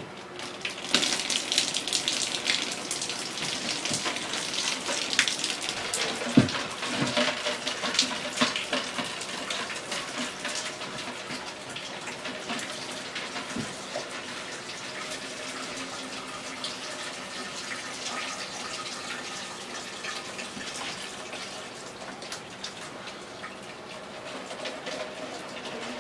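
Water splashing and trickling down from a leaking pipe in an opened, water-soaked ceiling. It starts about a second in, heaviest for the first several seconds, then settles to a steadier patter; the water is left in pipes that were meant to have been drained.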